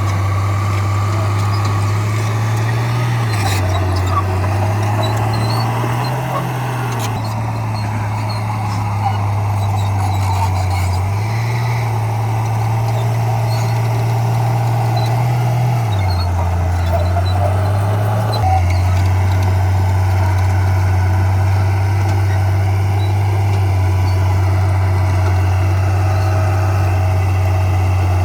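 Heavy diesel engine of earthmoving equipment running under load, its pitch rising and falling several times as it works, then holding steady for the last third.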